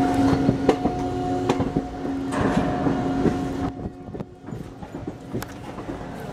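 Passenger train running through a junction, heard from an open coach doorway: wheels clicking irregularly over rail joints and points over a steady rumble and hum. It gets quieter about four seconds in.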